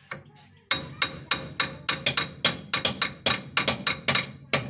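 Rapid metal-on-metal hammer taps on a jeep's wheel hub and brake assembly, about four blows a second, each with a short bright ring, starting about a second in.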